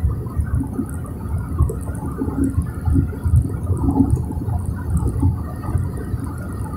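Car driving along an asphalt road, heard from inside the cabin: a low, uneven rumble of road and wind noise.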